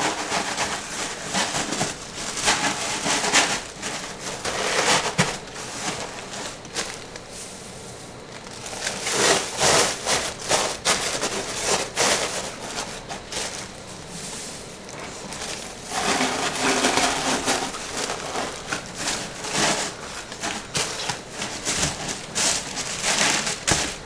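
Crinkle-cut kraft paper shred rustling and crackling in irregular handfuls as it is tucked around bars of soap in a cardboard shipping box.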